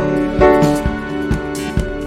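Background music: piano or electric piano chords over a steady beat.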